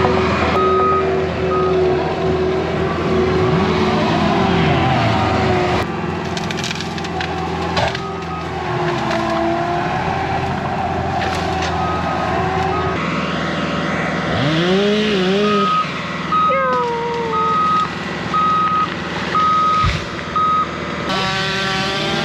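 Heavy equipment's diesel engine running while pushing trees over, with wood cracking and splintering. A reversing alarm beeps repeatedly in the second half.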